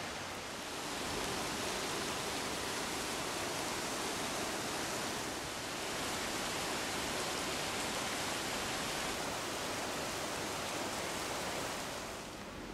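Steady rushing of river water over rocks and a small waterfall, an even hiss with no distinct splashes. It grows a little louder about a second in and eases off near the end.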